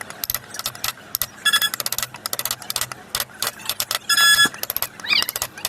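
Rapid, irregular sharp taps of wood carving tools working the wood, with a short high ringing tone about a second and a half in and a louder one about four seconds in.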